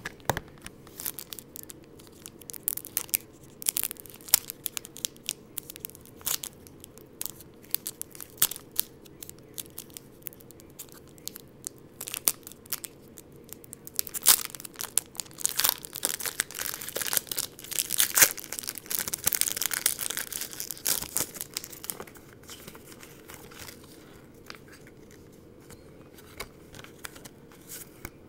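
Pokémon card packaging crinkling and tearing in the hands as a booster pack is opened: a steady run of irregular crackles, denser and louder about halfway through.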